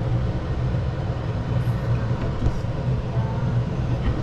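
A steady low mechanical hum and rumble.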